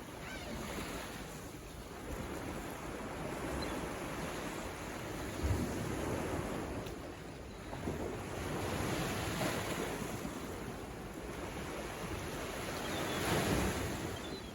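Ocean waves breaking and washing on the shore, swelling and ebbing every few seconds, with wind noise on the microphone.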